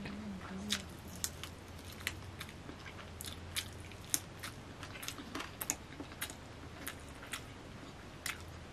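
A man eating chicken biryani with his hand, close to the microphone: wet chewing smacks and clicks of the mouth come irregularly, a few a second. A faint steady low hum runs underneath.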